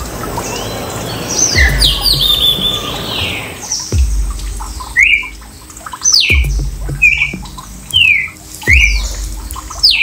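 Kestrels calling at the nest as an adult brings prey to its young: a jumble of squawking calls, then short sharp calls about once a second from about halfway on, several with a dull low thump under them.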